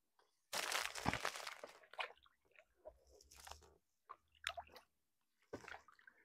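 A person chewing a snack bar: irregular crunching, loudest in a short burst about half a second in, then scattered quieter crackles.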